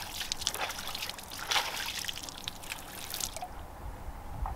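A hand splashing and flicking lake water over rocks: a run of small splashes and drips that stops about three and a half seconds in, leaving only a low rumble.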